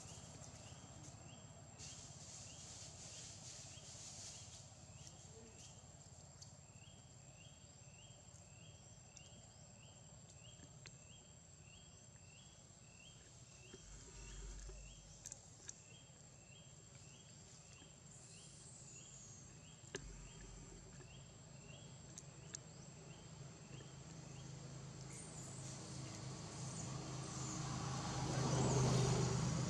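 Outdoor insect ambience: a steady high-pitched insect drone, with a short high chirp repeated about twice a second for much of the time and a low hum underneath. Near the end, a louder broad rumble builds up.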